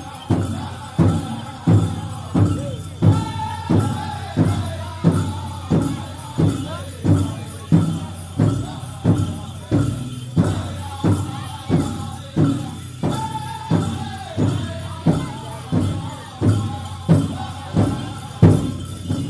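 Powwow drum group singing a chicken dance contest song, several voices in unison over a big bass drum struck in a steady beat of about three strokes every two seconds.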